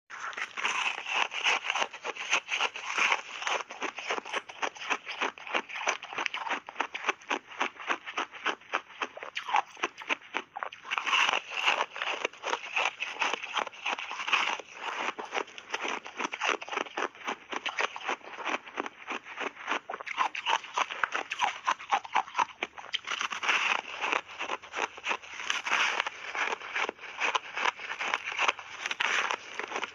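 Reshaped ice being bitten and chewed in big bites: a dense run of sharp, crackling crunches, several a second, with no let-up.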